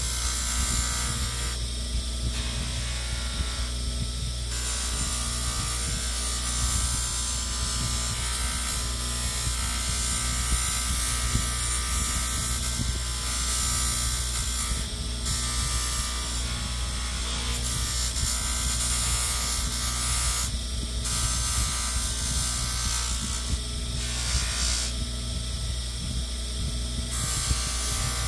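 Abrasive sanding on a steel knife, a steady rasping rub that stops briefly several times, over a constant low hum.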